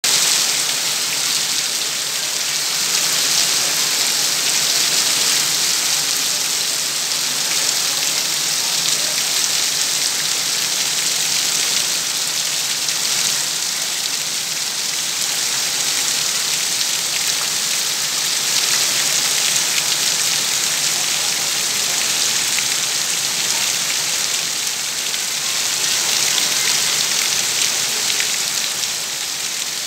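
Heavy rain pouring steadily onto puddled, waterlogged paving, a continuous even hiss.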